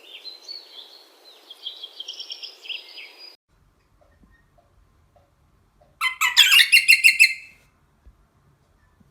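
Small bird calling with short high chirps and trills; the sound cuts off abruptly about three seconds in. After a pause, a loud, rapid run of sharp chirps lasts about a second and a half.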